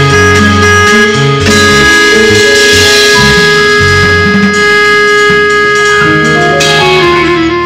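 Small jazz band playing live: trumpet and clarinet holding long notes over electric bass, drums and keyboard, the notes stepping down near the end.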